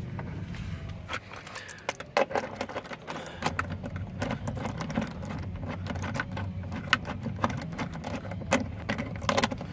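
Irregular metallic clicks and clinks of small metal hardware being handled: the seatbelt's anchor bolt, washer and fittings knocking together, over a steady low hum.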